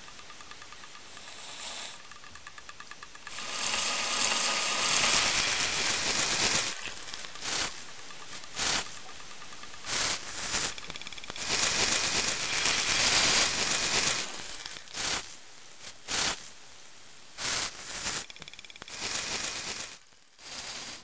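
Loud hissing noise that cuts in and out irregularly, in longer stretches of a second or two broken by short, sharp spurts.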